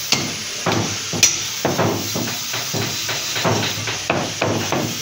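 Butcher's cleaver chopping mutton on a wooden chopping block: a quick, uneven run of heavy chops, about three a second, the loudest about a second in.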